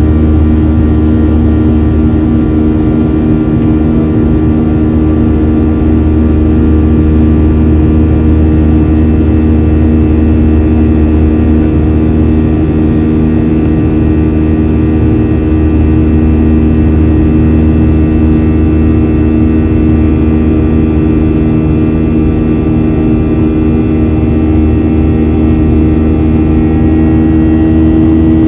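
Boeing 737-800's CFM56-7B turbofan engines at climb power, heard inside the cabin: a loud, steady drone with many steady tones on top, the engines' buzzsaw sound.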